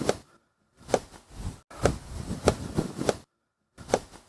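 A knife chopping food on a cutting board: about eight sharp strokes, irregularly spaced, broken by two short silent gaps.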